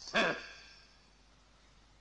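A short breathy vocal sound, like a sigh or grunt, just after the start, then fading to a faint hiss.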